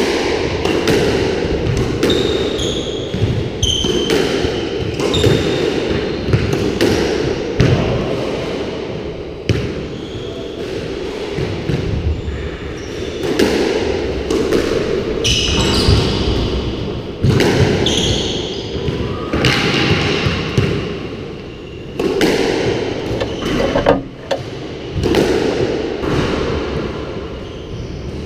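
A squash rally: the ball cracking off rackets and the front and side walls again and again, echoing around the court, with short sneaker squeaks on the wooden floor between shots.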